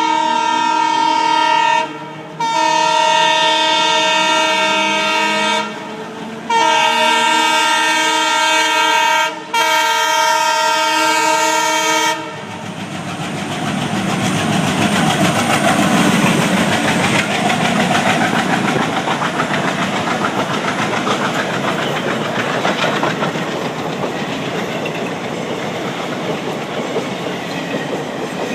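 Indian Railways WDM3D diesel locomotive's air horn sounding in four long blasts with short breaks, over about the first twelve seconds. Then the express train passes at speed, the coaches rolling by with steady rail clatter.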